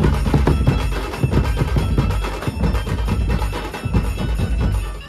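Dhumal drum band playing: large double-headed bass drums and snare-type drums beaten with sticks in a fast, dense rhythm.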